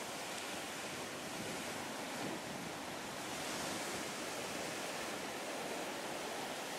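Sea surf washing steadily onto a pebble beach, a continuous hiss that swells slightly about three and a half seconds in.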